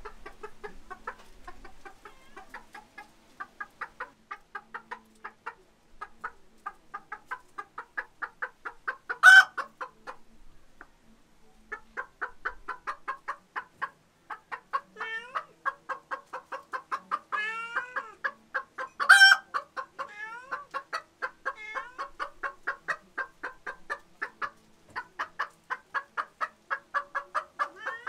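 Chickens clucking in a fast, steady run of about three to four clucks a second, with a much louder, sharp call about every ten seconds.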